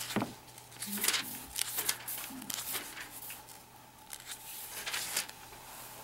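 Pages of a large, thick book being turned and leafed through: several short papery rustles, bunched in the first two seconds and again about five seconds in.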